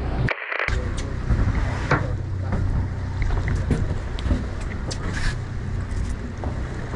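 Fishing boat's engine running with a steady low drone, under wind noise on the microphone and a few light knocks, with a brief break just after the start.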